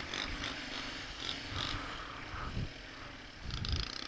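Engine of a 1989 Yamaha Moto-4 250 ATV running at low speed as it rolls across a lot, a low, uneven rumble.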